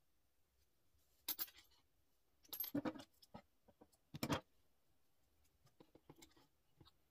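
Metal scissors handled on a wooden tabletop: three bursts of short clinks and rattles, about a second and a half apart, the last the loudest, then a few faint ticks.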